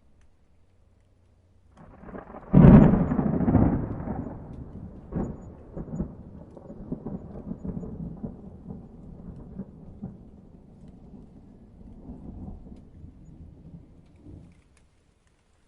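Thunder: a peal builds about two seconds in, breaks into a sharp loud crack, then rolls on as a long low rumble with another crack a few seconds later, dying away near the end.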